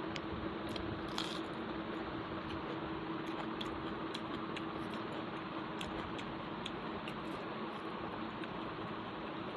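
Close-miked eating: chewing and fingers mixing rice on a steel plate, with small scattered clicks, over a steady background hiss.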